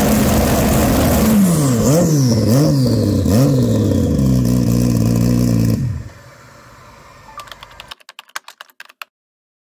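Turbocharged 2023 Suzuki Hayabusa's inline-four engine revved at a standstill in a string of quick throttle blips, its pitch rising and falling about five times, then running steady before stopping abruptly about six seconds in. Near the end, a quick run of typewriter-style clicks.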